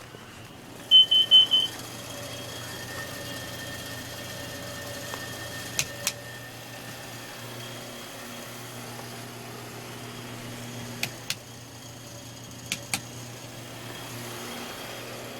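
Kidde carbon monoxide alarm giving four quick, loud, high-pitched beeps about a second in, set off by engine exhaust that the owner traces to a bad exhaust leak. A low steady engine hum runs underneath, with three pairs of sharp clicks later on.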